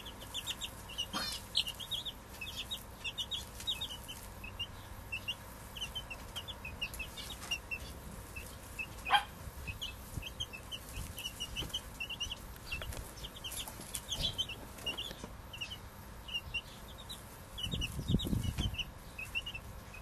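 Chicks peeping in quick, constant high chirps while a hen clucks as they scratch for food. A sharp tap about nine seconds in and a louder low burst near the end.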